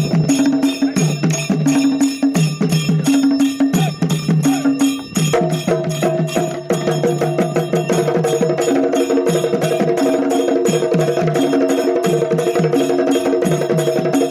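Chenda melam percussion remix: fast, steady drumming over a repeating bass figure, with sustained melodic tones joining about five seconds in.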